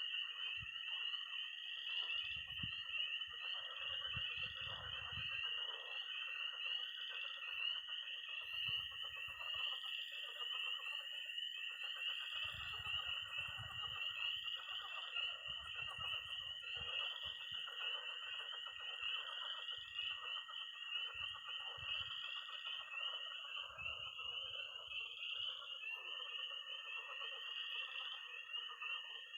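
Night chorus of spring peepers (peeping tree frogs), a dense high peeping that swells and ebbs about once a second. A long, steady high-pitched toad trill runs under it, breaking off briefly near the end. Lower pulsed croaking of pond frogs fills in beneath.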